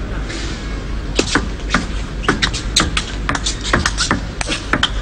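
Table tennis rally: the 38 mm celluloid ball clicks sharply off the rubber-covered bats and the table in quick, uneven succession. The clicks start about a second in, after the serve toss.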